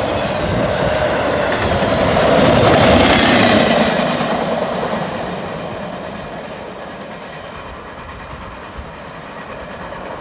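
Intermodal freight train running at about 59 mph, its last cars rushing past with wheels clattering on the rails. The sound is loudest about three seconds in, then fades steadily as the train pulls away.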